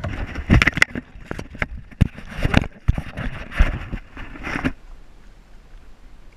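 A rapid, irregular flurry of knocks and scuffs on a boat deck for about four and a half seconds, then it stops and only a low background remains.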